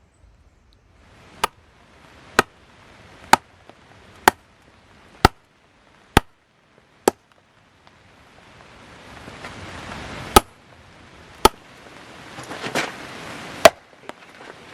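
Firewood being chopped: sharp strikes about one a second, seven in a row, then after a short pause a few more, louder, over a rising hiss.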